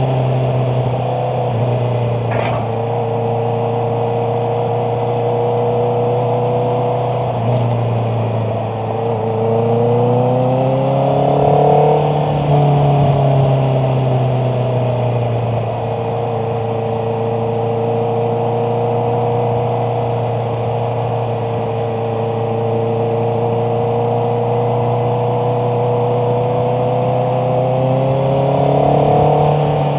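Honda CBR650R inline-four engine running steadily under way. The revs climb and fall back about ten seconds in, then climb again near the end.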